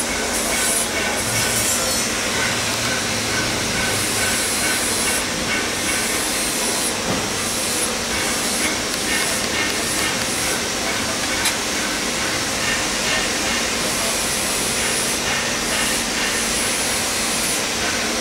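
Steady loud hiss of background noise, even throughout, with one sharp click about eleven and a half seconds in.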